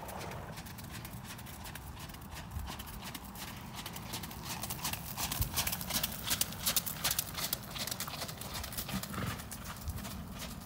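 Hoofbeats of a horse trotting on wet, gritty arena footing. They grow louder as the horse passes close by, about halfway through, then fade as it moves off.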